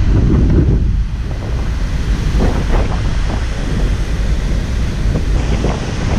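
Strong wind buffeting the microphone, a loud low rumble that surges and eases unevenly, with the rush of wind-whipped sea.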